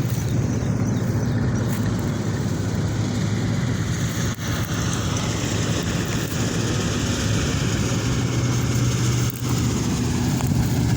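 Engine of a large wheat-harvesting machine running steadily with a low hum, over a higher whine that slowly falls in pitch; the sound drops out briefly about four and nine seconds in.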